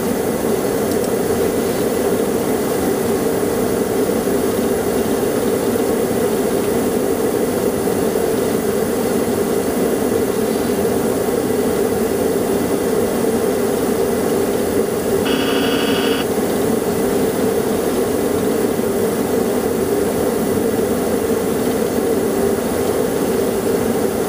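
Steady cockpit noise of an MD-80 jet airliner on final approach: airflow and engine drone with a constant hum. A short electronic beep-like tone sounds once, about fifteen seconds in.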